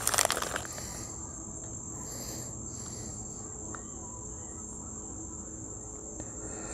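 Plastic food packaging crinkles briefly at the start. After that comes a steady, high-pitched insect chorus, typical of crickets, with a few faint ticks.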